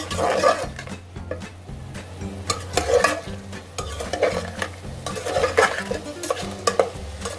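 Boneless chicken pieces stir-fried in oil in an aluminium pot. A spatula scrapes and turns them in irregular strokes over a steady sizzle.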